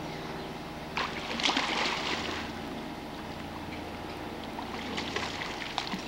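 Splashing and sloshing of swimming-pool water as a child swims, with the loudest splash about a second and a half in and a few small splashes near the end.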